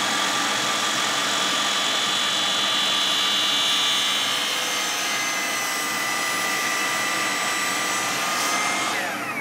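Sliding miter saw running with a steady motor whine as its blade cuts down through a wooden jig block. Near the end the motor winds down, its pitch falling.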